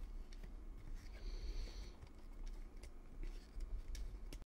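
Hands twisting a plastic mounting base onto a threaded air-assist fitting: faint scattered clicks and handling noise, with a brief scrape about a second in.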